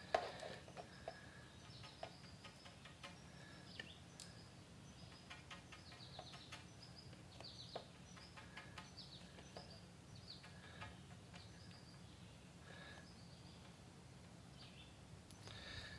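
Faint bird chirps, many short falling notes scattered throughout, over a low steady hum, with light clicks and taps; a sharper tap comes right at the start.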